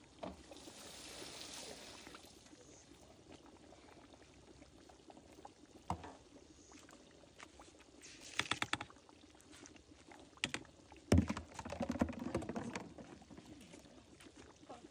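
Rice poured from a plastic sieve into a large aluminium cooking pot: a soft hiss near the start, a quick run of clicks about eight seconds in, then a loud knock about eleven seconds in followed by a rattling clatter.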